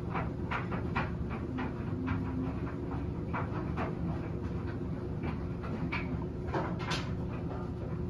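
Front-loading washing machine tumbling a load of laundry: a steady low drum-and-motor hum with short, irregular swishes as the wet clothes fall in the drum, several a second.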